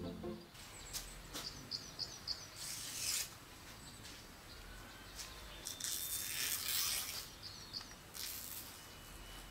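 Dried palm-leaf strips rustling and scraping in short dry bursts as they are worked and split by hand, with a few faint bird chirps in the background.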